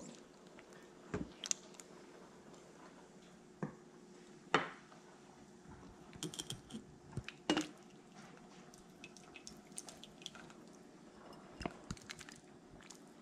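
Hamburger soup stirred in a slow cooker's stoneware crock and ladled into a bowl: scattered knocks of a wooden spoon and a plastic ladle against the crock, with wet sloshing and dripping of the soup.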